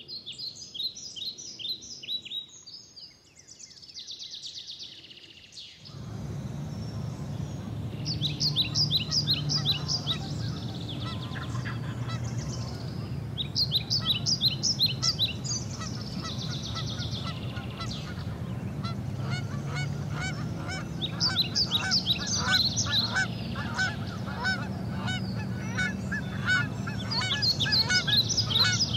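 Several birds singing and calling in short, rapid, repeated phrases, with a steady low rumble underneath from about six seconds in.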